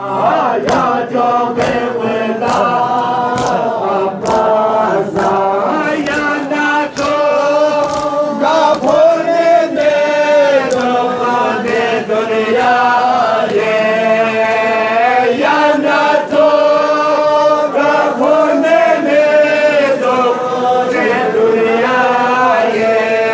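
A group of men chanting a lament together in unison, the voices held on long notes. Sharp rhythmic slaps, about two a second, run under the chant through roughly the first half.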